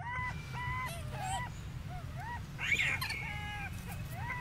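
Monkeys calling: a string of short, high, rising-and-falling calls, several a second and sometimes overlapping, with one louder shriek about two-thirds of the way in, over a steady low rumble.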